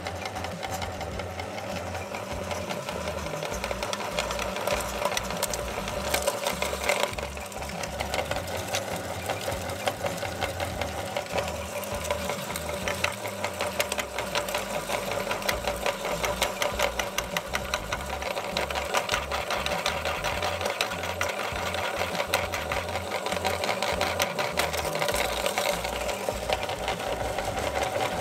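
Motor-driven aluminium meat grinder running steadily with a dense rapid ticking, crushing a hard-candy lollipop into fragments.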